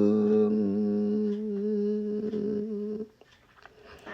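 A solo voice singing in Vietnamese holds one long, steady note on the word "hương", then breaks off about three seconds in.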